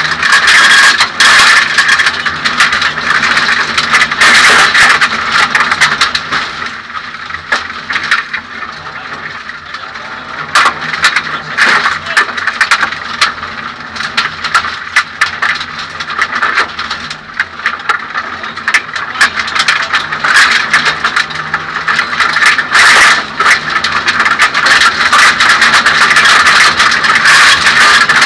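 Onboard sound of a Suzuki Swift 1600 Group N rally car at speed on a gravel stage. The 1.6-litre four-cylinder engine is running hard under a constant loud rattle and clatter of stones striking the body and underside. It eases somewhat in the middle and builds up loud again towards the end.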